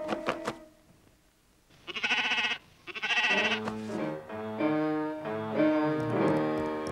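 A cartoon sheep bleating twice, about two and three seconds in, between short plucked notes at the start and a cartoon music score of stepping notes that carries on to the end.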